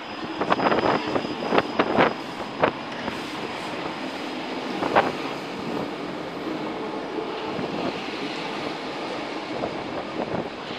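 City street noise from a steady stream of traffic, with a quick run of sharp knocks in the first three seconds and one more about five seconds in.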